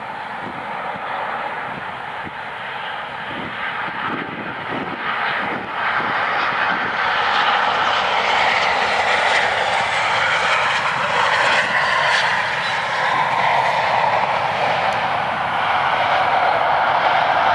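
Boeing 737-800's CFM56 turbofan engines during a landing: a steady jet rush that grows louder as the airliner comes low over the runway about eight seconds in, then stays loud as it rolls out along the runway.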